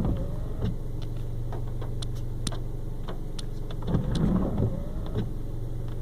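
A steady low vehicle engine hum with scattered sharp clicks. Twice, a brief muffled vocal sound rises and falls over it.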